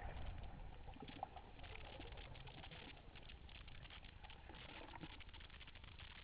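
Faint underwater ambience picked up by a camera near a coral reef: a dense crackle of fine clicks over a low rumble.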